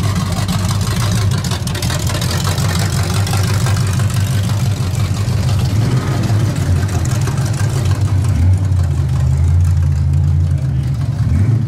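Engines of classic cars cruising past at low speed: a blue square-body Chevrolet pickup, then a red 1960s Ford hardtop. A steady low exhaust rumble that grows loudest a little past two-thirds of the way through, as the Ford passes close.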